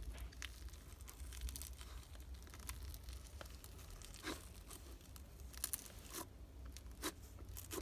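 White-glue-based slime being squished and stretched by hand, making faint crackling and small popping clicks.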